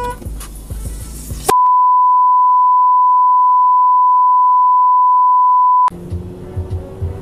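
A steady pure beep at one pitch, a dubbed-in bleep tone that replaces all other sound for about four seconds, starting about a second and a half in. Before and after it, car interior noise with a few low thumps as the car pulls away.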